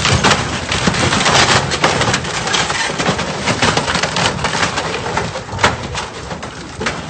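Concrete pier edge crushing and breaking under a superyacht's bow: a steady, loud crunching full of sharp cracks and snaps of uneven spacing.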